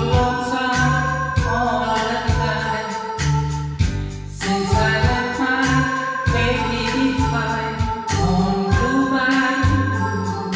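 A song playing: voices singing over a bass line and a steady drum beat.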